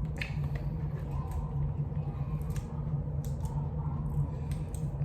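Seafood being eaten by hand: scattered short clicks and cracks of shells being broken and peeled, and wet squishing, over a steady low hum.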